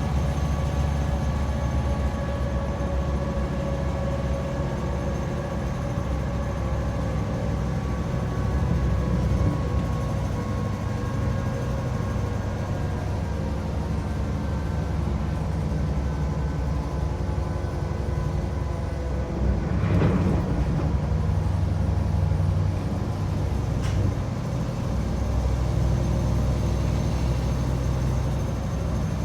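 Class 755/3 bi-mode train's diesel power pack running hard with its cooling fans, a steady low engine drone with a layer of steady fan and machinery tones. About two-thirds of the way through there is a brief louder swell.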